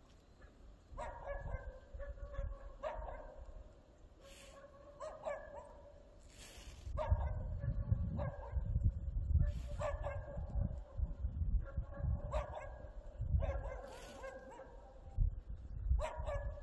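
A dog barking repeatedly, about a dozen short barks at uneven intervals, over a low rumble that starts about halfway through.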